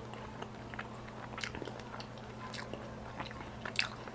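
Close-miked chewing of food: soft wet mouth clicks and smacks, with a few sharper ones about a second and a half, two and a half and nearly four seconds in, over a faint steady low hum.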